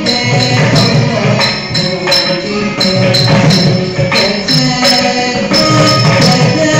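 Carnatic dance music for Bharatanatyam: a held melody over a rhythmic percussion beat, with a bright jingle like the dancers' ankle bells on their foot stamps.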